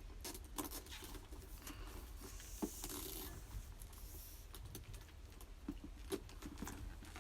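Faint handling noise from a handbag and its sling strap being fitted: scattered light clicks and jingles of the strap's metal clasps, with a short rustle about three seconds in.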